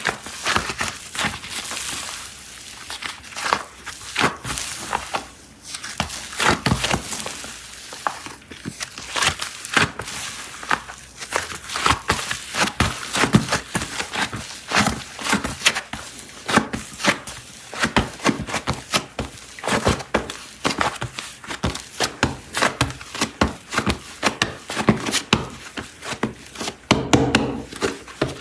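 Plastic clay packaging crinkling and rustling as it is handled and opened, with many quick crackles, clicks and light taps in a busy, uneven run.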